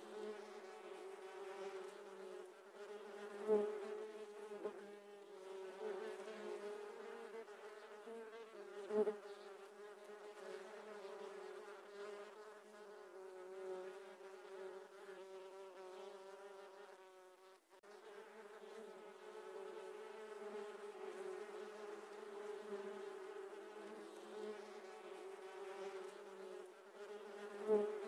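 A swarm of giant honey bees (Apis dorsata) buzzing as a steady, dense hum around their open comb while it is being harvested, with a few short knocks about 3.5 and 9 seconds in and again near the end.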